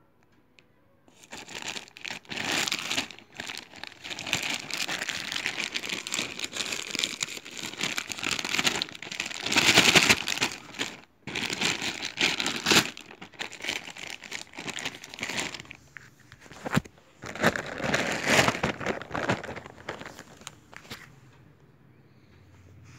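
Packaging being unwrapped and handled: irregular crinkling and rustling starting about a second in, loudest near the middle, dying away a couple of seconds before the end.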